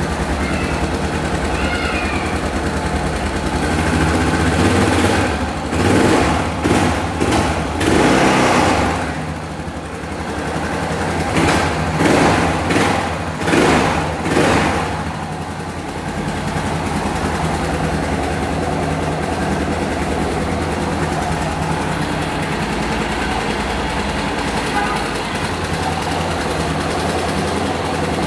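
1998 Yamaha XT 600's single-cylinder four-stroke engine idling, revved in short throttle blips twice, once about five seconds in and again about eleven seconds in, each time for a few seconds before settling back to a steady idle.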